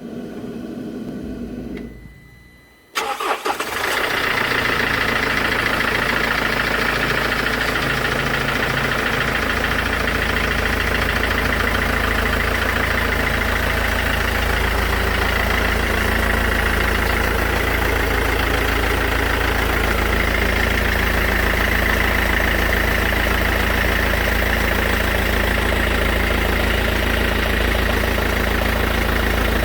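Mercedes E 220 CDI four-cylinder diesel engine started about three seconds in, after a brief hum, then idling steadily. The owner presents its running as clattering ("klackern").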